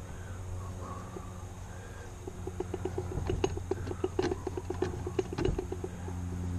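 Old Singer sewing machine head turned by hand at its handwheel: the mechanism clatters in a quick, even run of about eight clicks a second for a few seconds, then stops. A low steady hum lies underneath.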